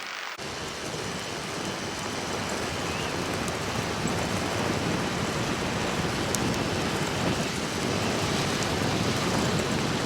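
Steady rushing wind and road noise from a recumbent trike coasting downhill at about 40 km/h. It cuts in abruptly just after the start and grows slightly louder.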